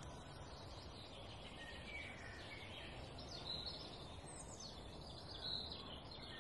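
Faint outdoor background noise with small birds chirping on and off.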